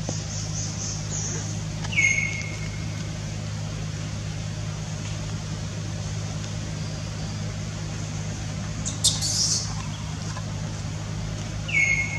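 Short high animal calls that fall in pitch, one about two seconds in and another near the end, with a brief sharper chirp shortly before the last one, over a steady low hum.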